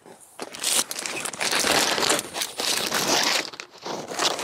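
Clear plastic sheeting crinkling and crackling loudly as it is handled and pushed aside, close to the microphone.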